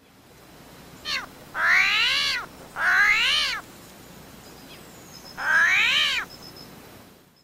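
An animal's calls: a brief one about a second in, then three longer calls, each rising and then falling in pitch, over a faint steady hiss.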